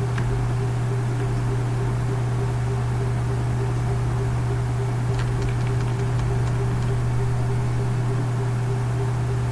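Steady low hum with a faint hiss that holds unchanged throughout, with a few faint clicks about five seconds in.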